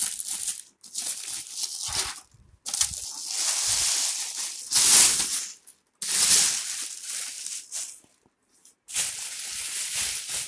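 Thin plastic bag crinkling and rustling in several loud bursts as it is pulled off a subwoofer by hand.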